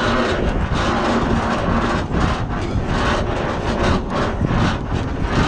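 Wind buffeting the microphone in irregular gusts over a low, steady rumble.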